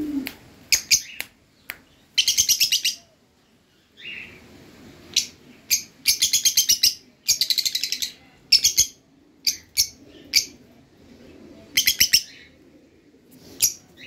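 A small flock of caged Fischer's lovebirds calling: loud, shrill chirps repeated rapidly in several bursts of about a second each, with single sharp chirps in between.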